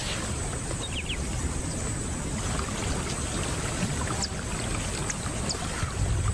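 Water splashing and sloshing as young lions step through a shallow marshy pool, with a few faint high chirps about a second in and again near the end.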